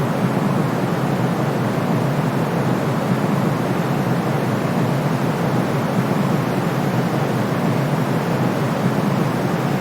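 Steady, unbroken sleep white noise, a soft even hiss weighted toward the low-middle range, with little top end and no deep bass; its level and character never change.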